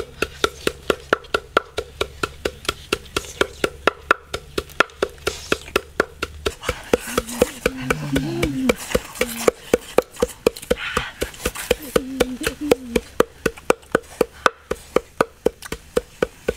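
Wooden pestle pounding in a steady, rapid rhythm, about four sharp woody knocks a second.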